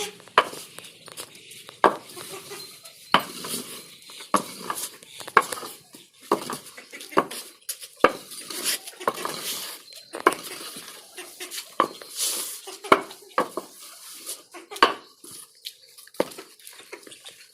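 Irregular sharp knocks and clatter, about one a second, like hard objects or metal vessels being handled and bumped.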